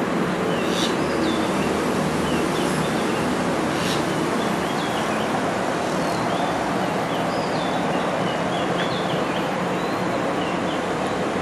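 Steady hum of distant traffic, with small birds chirping in short high calls throughout.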